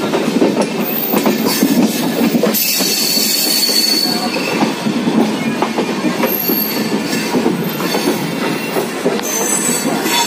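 Express train coach running over station trackwork, heard from inside the coach: a steady rumble of wheels on rail with quick clicks over rail joints and points. A thin wheel squeal rises over it for about a second and a half, starting a little over two seconds in.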